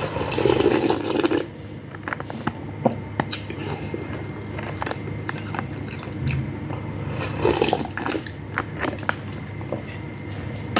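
Close-up eating sounds of noodle soup: a loud slurp at the start, then wet chewing and smacking with small clicks.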